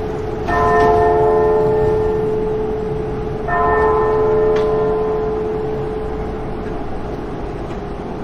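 A bell struck twice, about three seconds apart, each stroke ringing on and dying away slowly over a lingering low hum note.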